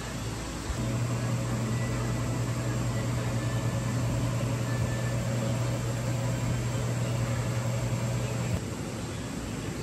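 Steady low machine hum over a constant hiss, coming in about a second in and cutting off abruptly near the end.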